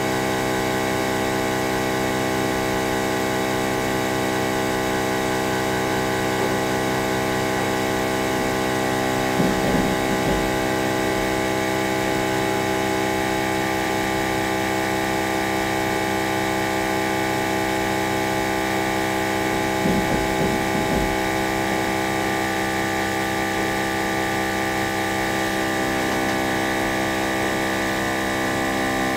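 Steady electric hum of the OM-518Plus repair machine's built-in vacuum pump running, an unchanging drone with many overtones. Two short low thumps break in, about ten seconds apart.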